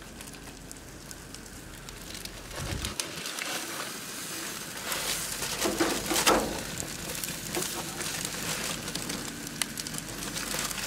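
Fish fillets sizzling and crackling on aluminium foil on a hot grill, with the foil crinkling and a metal spatula scraping under a fillet; the scraping and crinkling are loudest about six seconds in.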